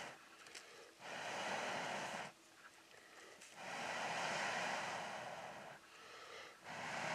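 A man blowing long, hard breaths into a handful of glowing charcoal to fan it into flame: a blow about a second in, a longer one a couple of seconds later, and a third starting near the end.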